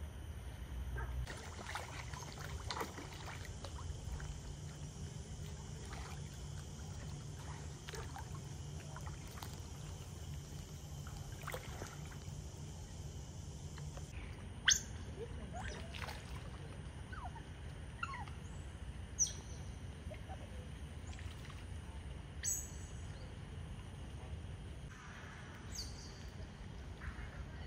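Outdoor pond-side ambience: a steady low hum with faint running water, and from about halfway through, several short, sharp high chirps that drop in pitch.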